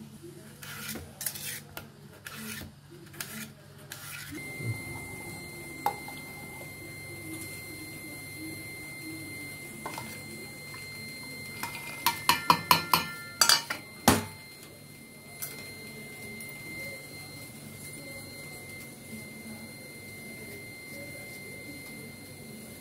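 Steel kitchenware clinking: a few scattered taps of steel dishes, then, about halfway through, a quick run of about half a dozen sharp clinks and knocks as cashew nuts are tipped from a small steel bowl into a steel mixer-grinder jar. A faint steady high tone runs behind from a few seconds in.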